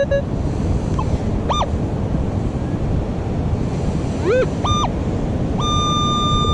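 Metal detector sounding target tones: a few short beeps that rise and fall in pitch, then a long steady beep near the end, over steady wind and surf noise.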